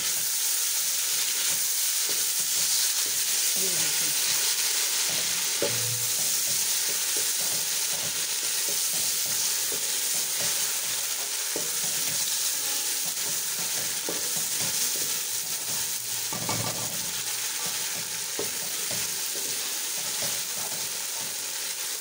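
Sliced onions and garlic-ginger paste sizzling steadily in hot oil in a metal pot, being fried as the base of a kadhi. A wooden spoon stirs through them, with scattered scrapes and knocks against the pot.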